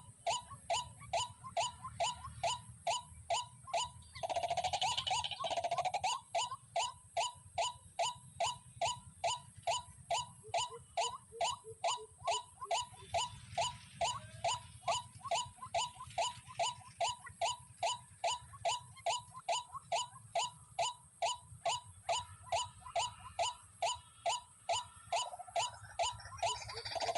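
White-breasted waterhen (dahuk) calling, a short 'kwak' note repeated very evenly about two and a half times a second. A louder, rougher sound cuts across it about four seconds in and again near the end.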